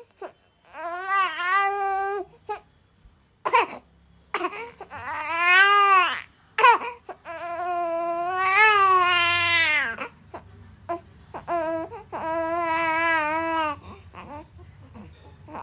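A baby crying: long, loud, high wails, each held for one to three seconds, with short gasping breaths between them.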